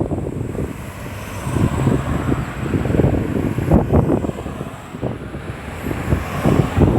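Road traffic passing, with wind buffeting the microphone in irregular low gusts.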